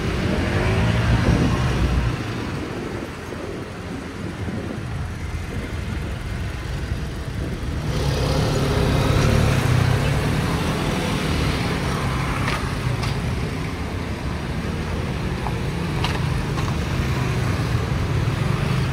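Road traffic at a busy city junction: cars and motor scooters driving past close by, engines running and tyres on the road. The noise is steady, with abrupt shifts in level about two seconds in and again near eight seconds.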